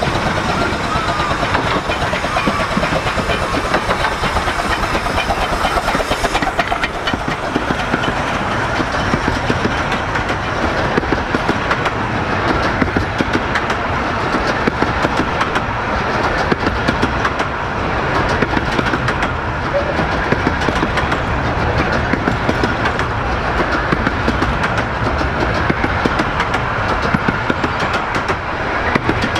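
A 15-inch gauge miniature steam train runs past close by. Its carriage wheels clatter and click steadily over the rail joints.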